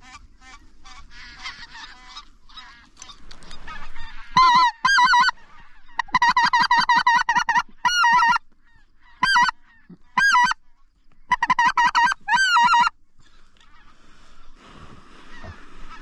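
Geese honking: faint scattered honks at first, then loud, close runs of honking in several bursts with short gaps, from about four seconds in to about thirteen seconds.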